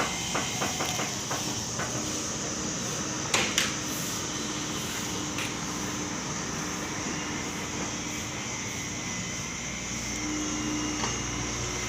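Komatsu PC78 mini excavator running steadily, with a few light clicks in the first two seconds and two sharp knocks about three and a half seconds in.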